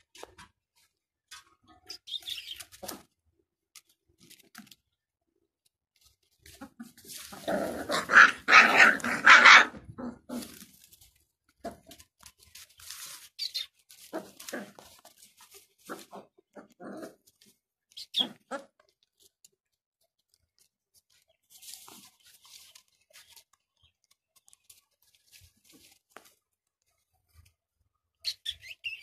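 Gultair puppies giving a loud burst of barks and yelps about seven seconds in, then scattered short yips and scuffling noises as they move about in the dirt and straw.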